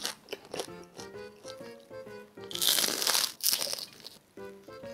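Toasted baguette crust crunching as it is bitten and chewed, loudest about halfway through, over soft background music.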